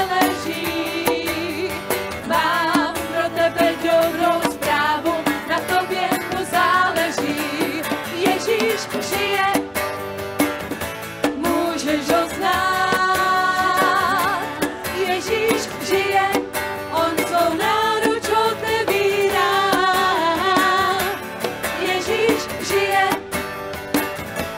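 Worship song: a singer's voice with vibrato over band accompaniment with a steady drum beat.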